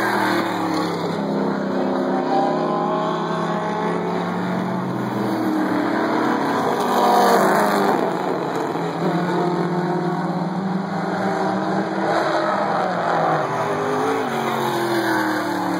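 Engines of several Pro 4 class race cars running laps on an oval track, overlapping and rising and falling in pitch as they go by. The loudest pass comes about seven seconds in, and another car passes with a falling pitch near the end.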